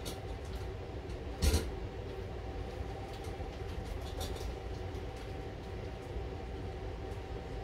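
A steady mechanical hum with a few steady tones in it, broken once by a sharp knock about a second and a half in.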